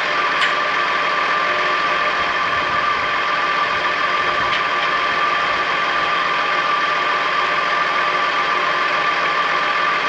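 Tractor engine running steadily, with a steady high whine over it.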